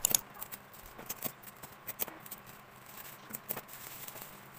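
Plastic bubble wrap crinkling and crackling as hands fold and press it around a box, an irregular run of sharp crackles, loudest right at the start.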